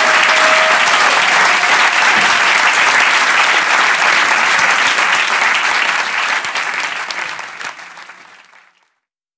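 Live audience applauding, a dense steady clapping that fades away from about six seconds in and is gone shortly before the end.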